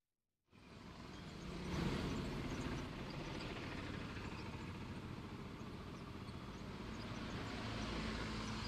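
Steady rushing noise of a rainstorm with vehicles on a wet road, starting abruptly about half a second in.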